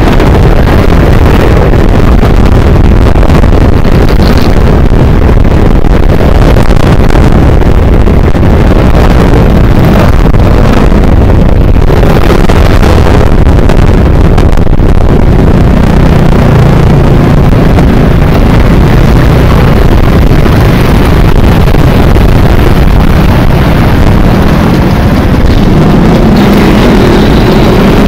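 Scooter engines running at road speed, heard under heavy wind noise on the microphone. The sound is loud and steady.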